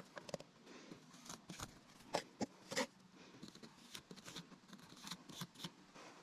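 Faint scattered clicks and taps of small objects being handled in a small room, a few louder ones a little after two seconds and near three seconds in.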